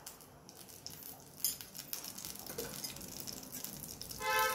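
Coconut oil heating in a nonstick frying pan on a gas burner, with faint crackling and a few soft ticks. A short, steady tone sounds near the end.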